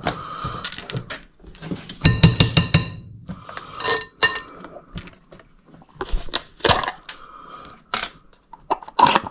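Metal spoon clinking against a ceramic mixing bowl, with a quick run of taps about two seconds in, followed by scattered clicks and knocks as a plastic sour cream tub is handled.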